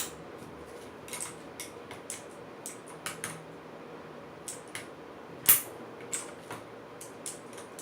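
Light plastic clicks and taps from an ABKO Hacker K2000 mechanical keyboard being worked with a keycap puller to take off a keycap, with one sharper, louder click about five and a half seconds in.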